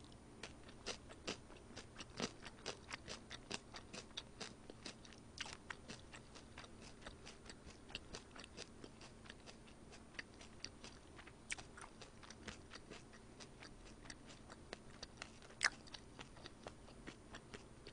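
A person chewing food close to the microphone: a run of small, irregular mouth clicks and crunches, several a second, with one louder click a little before the end.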